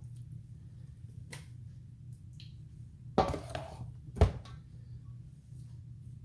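Kitchen pans being handled: a few knocks and clatters, the loudest two about three and four seconds in, over a steady low hum.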